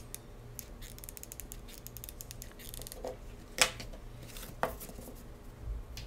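Faint handling clicks and rustles as poster-board sides are pressed together and a hot glue gun is worked along the edge, with a sharp click about three and a half seconds in and a lighter one a second later.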